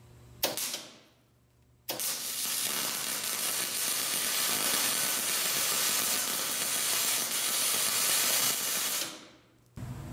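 MIG welding arc in spray transfer: a brief arc strike about half a second in, then a vertical-down weld bead run for about seven seconds as a steady hiss, which then dies away.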